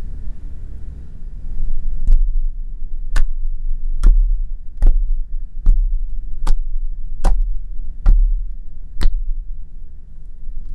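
Homemade slime being poked and pressed with fingertips, giving a sharp click or pop about once every 0.8 seconds from about two seconds in, over a steady low rumble.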